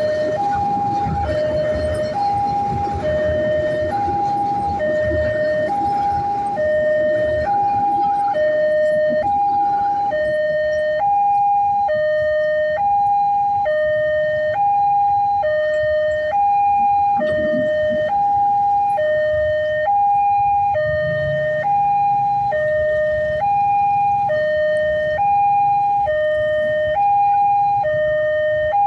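Railway level-crossing warning alarm sounding a steady repeating two-tone pattern, high then low, over and over. A passenger train rumbles past under it and fades out about a third of the way in.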